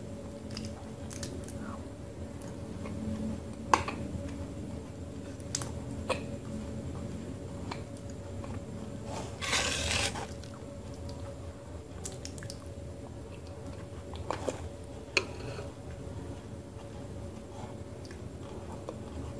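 A spoon scooping thick, wet multani mitti clay paste from a metal bowl, with squishy wet mouth sounds as the paste is eaten and scattered sharp clicks of spoon on bowl. A louder wet, noisy stretch lasts about a second halfway through.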